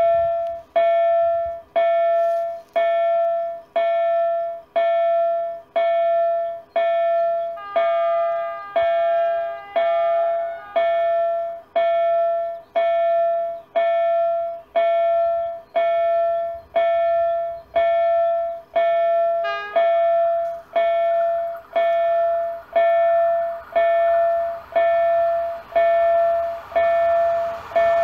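Level crossing warning bell ringing about once a second, each strike a single ringing tone that dies away, with other tones joining briefly around eight to eleven seconds in. Near the end the rumble of the approaching train rises under the bell.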